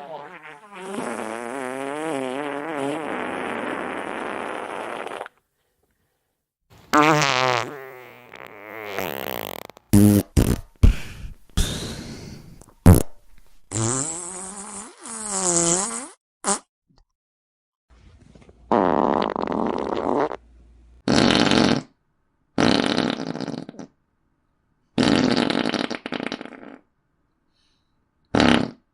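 A string of fart sound effects with short gaps between them. Near the start comes a long one with a wavering pitch lasting about four seconds, around the middle a burst of short sharp pops, and toward the end several shorter blasts.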